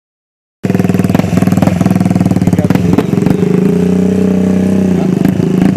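Single-cylinder engine of a Honda ATC 200X three-wheeler running steadily with a fast, even firing pulse. The pitch shifts slightly now and then, and a few sharp clicks or knocks sound over it.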